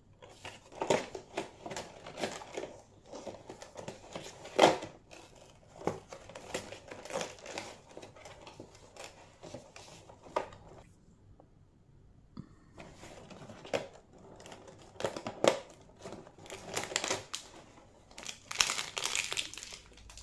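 Toy blind-box packaging handled and torn open by hand: a crinkly wrapper and cardboard tearing, then foil blind bags rustling. It comes in irregular crackling bursts with a short lull about halfway through.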